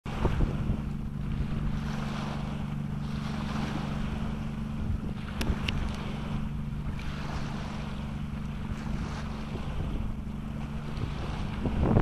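Wind buffeting the microphone over a steady low hum, with a couple of brief faint ticks about halfway through.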